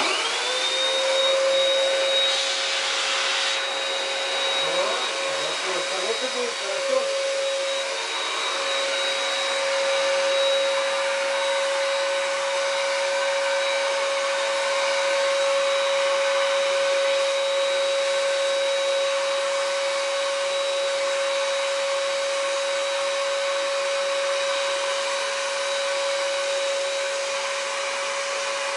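The turbine blower of a Patriot SG 550 electric paint sprayer is switched on, its whine rising within about a second and then running steady and even while paint is sprayed.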